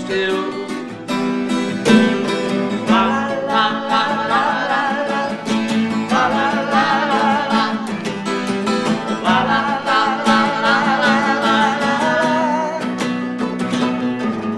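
Several acoustic guitars, a nylon-string among them, strumming and picking a country song. The sung word "still" closes a chorus line at the start. A wavering melodic lead line then runs over the strumming from about three seconds in.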